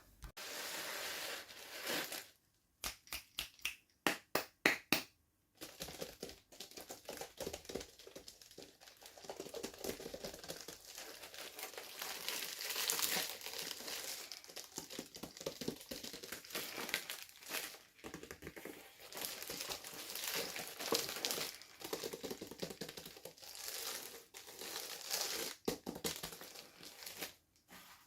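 Plastic packaging crinkling and rustling as it is handled and torn open. A quick series of sharp clicks comes about three to five seconds in.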